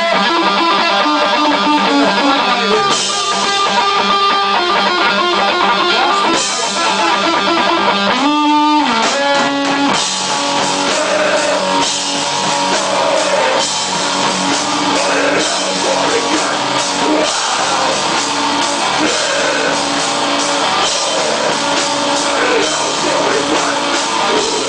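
Rock music with guitar and drums, loud and steady, with a brief swooping pitch effect about eight seconds in.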